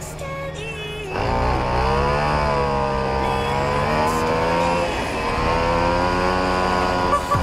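Piaggio Ciao moped's small two-stroke engine picking up about a second in, its pitch rising, then running at a fairly steady speed with a brief dip midway. A short knock comes near the end.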